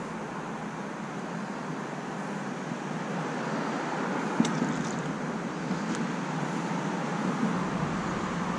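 Small rock bass released back into the river, a brief splash about four seconds in, over a steady outdoor background rush.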